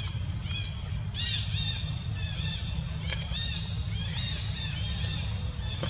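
Many short, high-pitched squeaky animal calls, each rising and falling, repeated in quick succession over a steady low rumble.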